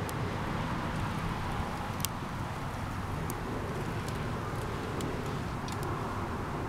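Small wood-and-cardboard fire burning in a homemade mini-keg wood stove, giving sharp crackles and pops every second or so over a steady low rumble.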